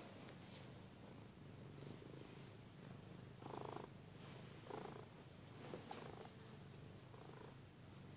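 Domestic cat purring steadily while being petted, faint and low, with a few brief louder noises over it from about three and a half seconds in.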